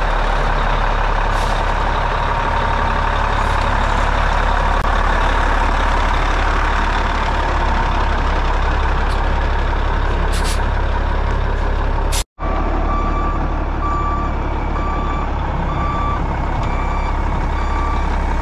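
Cummins N14 diesel of a heavy truck running steadily as the truck pulls out. After a cut about twelve seconds in, a backup alarm beeps at a steady pace over the engine.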